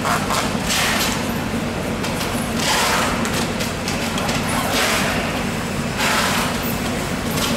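A blade scraping the scales from a giant bluefin tuna's skin, one rasping stroke every second or two, over a steady low hum.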